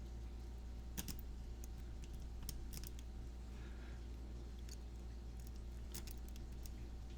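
Lock pick and tension tool working in a Master Lock 220 padlock held in hand: a few scattered light metallic clicks, the pick moving over the pins while the lock sits in a false set, over a steady low hum.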